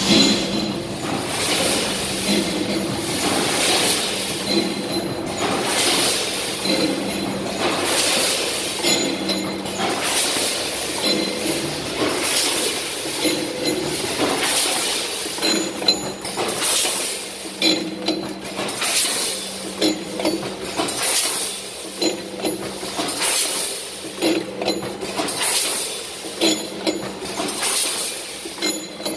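Vertical form-fill-seal packing machine running with popcorn: repeated clinking clatter as portions drop and bags are made, in a cycle about every two seconds, over a steady motor hum.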